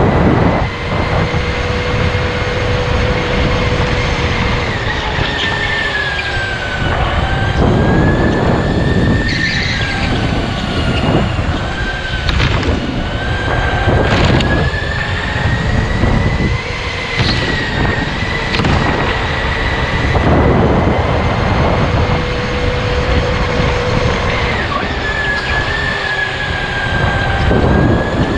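Electric go-kart motor whining at a high steady pitch that drops and climbs back several times as the kart slows and speeds up again, over a loud, steady rushing noise.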